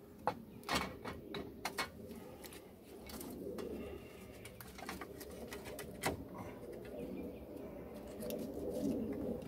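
Sharp metallic clicks and knocks as a new wheel hub bearing unit is slid over the axle splines and seated in the steering knuckle of a 2015 Chevy Silverado, a cluster in the first two seconds and one more about six seconds in. A low cooing runs steadily underneath.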